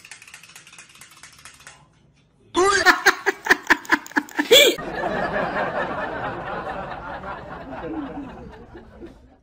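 A person laughing: a loud run of quick, rhythmic bursts of laughter for about two seconds, followed by a softer, longer stretch of laughing voice that stops abruptly near the end.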